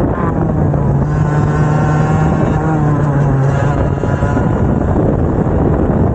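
Two-stroke racing kart engines at speed under a constant rush of noise. One steady, high-revving engine note stands out for the first few seconds, then fades.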